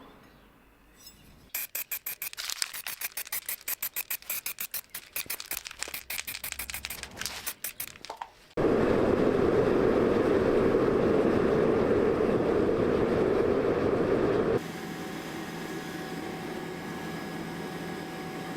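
Shop tool noise: a run of rapid, irregular metallic strikes, then a loud steady machine noise that cuts in abruptly, and about two-thirds of the way through drops suddenly to a quieter steady running hum.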